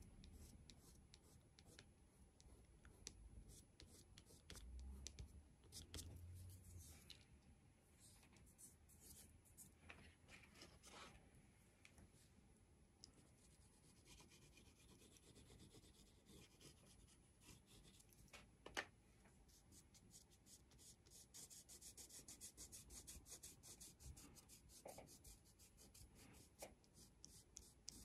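Faint rubbing and scratching on paper: a fingertip smudging wax crayon, and a blue crayon stroked across the sheet, with a denser run of quick strokes in the later part and one sharp tick a little past the middle.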